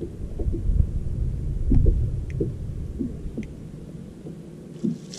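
Low, uneven rumble of wind gusting on the microphone. It swells through the first couple of seconds and dies away, with a few faint ticks over it.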